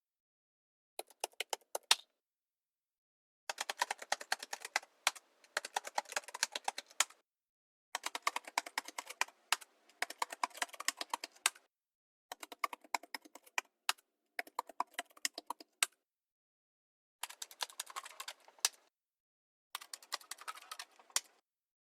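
Typing on a computer keyboard: quick runs of sharp key clicks in six separate takes, with dead silence between them. At least one take ends on a single much harder key strike, the Enter key slapped down.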